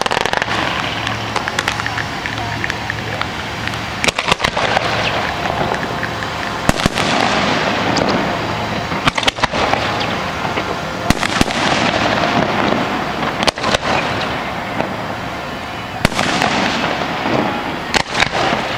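Aerial fireworks display: shells going off with sharp bangs every two to three seconds, several followed by dense crackling that dies away.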